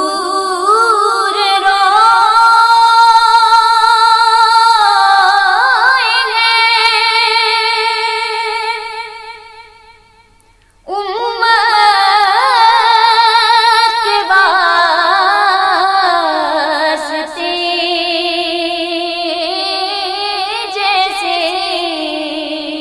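A woman singing an Urdu naat in long, drawn-out phrases with vibrato. One held phrase fades out about ten seconds in, and a second begins a moment later and slowly falls in pitch.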